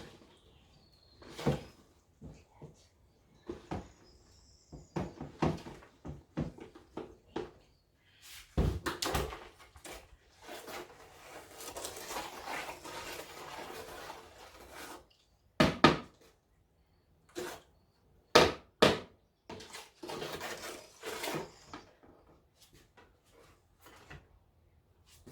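Scattered knocks, clunks and thuds of objects being handled and set down, with about five seconds of steady rushing noise in the middle.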